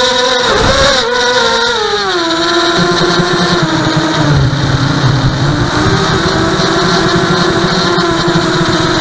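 ImmersionRC Vortex 250 FPV racing quadcopter's brushless motors and propellers whining. The pitch wavers up and down in the first two seconds, then drops to a steadier, lower tone as the throttle eases. A low wind rumble on the onboard microphone joins in about three seconds in.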